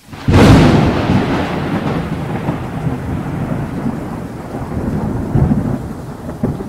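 Thunder with rain: a sudden loud crash just after the start that rolls on as a steady rumble and hiss.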